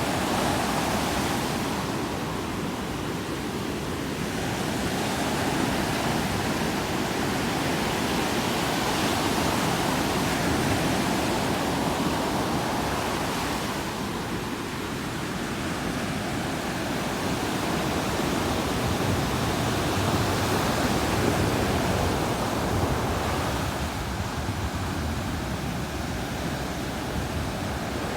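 Ocean surf breaking on a sandy beach: a continuous rushing wash of waves that swells and eases every several seconds.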